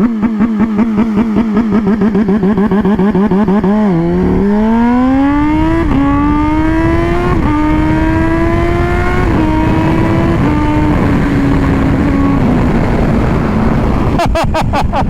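Motorcycle engine accelerating hard through the gears. After a few seconds of uneven running, the pitch climbs and drops back at each of four or five upshifts, with a few sharp clicks near the end.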